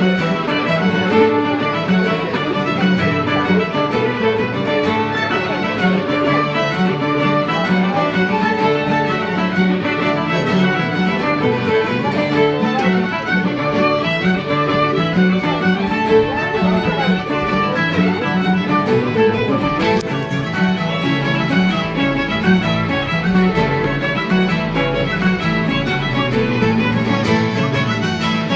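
Fiddle playing a Scottish pipe jig over guitar and resonator tenor guitar accompaniment.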